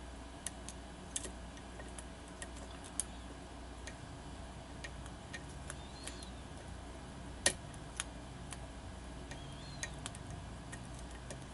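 Lock pick working the pins of a pin-tumbler challenge lock under tension: small, irregular metallic clicks and faint scrapes as pins are lifted and set, with one louder click about seven and a half seconds in.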